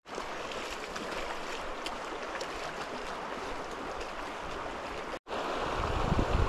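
River water rushing steadily over a riffle, an even wash. It cuts out for an instant about five seconds in and comes back louder and deeper.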